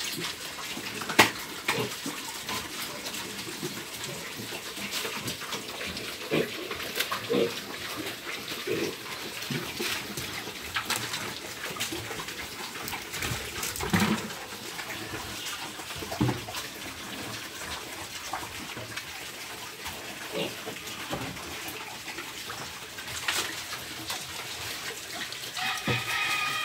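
Pigs feeding on breadfruit leaves: chewing, crunching and snuffling with many scattered small clicks and knocks, and occasional short grunts. A brief high-pitched call sounds near the end.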